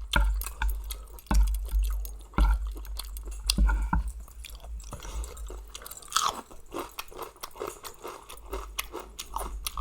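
A person chewing a mouthful of mixed-seafood pounded salad close to the microphone, with irregular wet clicks and small crunches.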